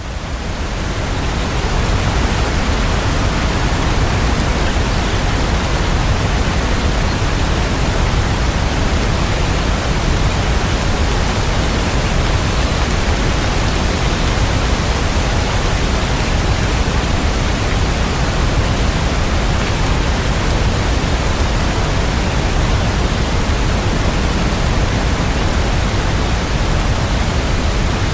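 Rain sound track: a dense, steady hiss of rain with no single drops standing out, swelling up over the first couple of seconds and then holding level.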